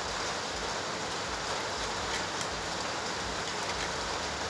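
Steady background hiss throughout, with a few faint clicks about two seconds in.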